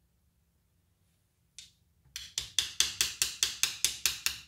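Rapid, even tapping with a screwdriver on the housing of a circular saw, about five sharp ringing taps a second, after a single tap about a second and a half in. The tapping is done to work loose a worn carbon brush that is stuck in its holder.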